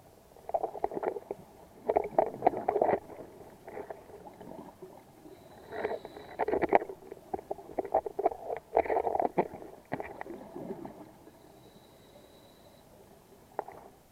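Scuba diver's exhaled bubbles gurgling and crackling out of the regulator in bursts every few seconds, the rhythm of breathing underwater.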